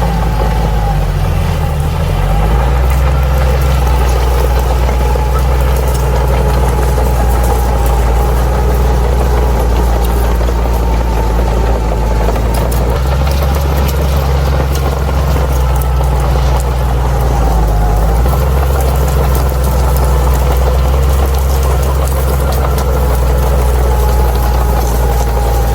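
Crawler bulldozer's diesel engine running steadily, with a wavering whine above it. The engine note dips briefly twice, about two seconds in and again near seventeen seconds.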